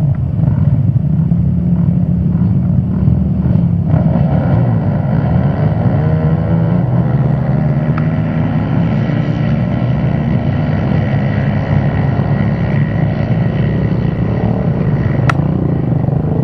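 Several ATV (quad bike) engines running together. About four seconds in they rev and accelerate hard off the line as a pack, pitch climbing, then run on at high revs.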